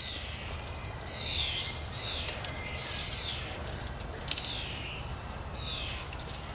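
Outdoor birdsong: short chirps that slide down in pitch, repeating about once a second, over a low steady hum.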